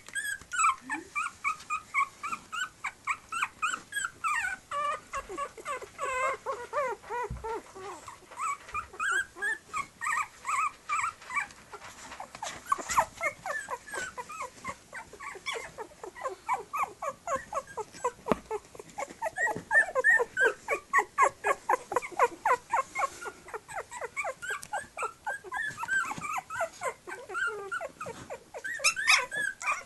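Three-week-old Tibetan Terrier puppies whimpering and squeaking: a near-continuous stream of short, high, gliding calls from several pups at once, several a second and overlapping.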